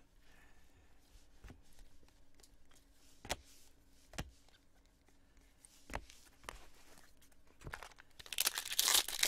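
Trading cards being handled and flipped through, with a few light taps. Near the end a foil card pack is loudly crinkled and torn open.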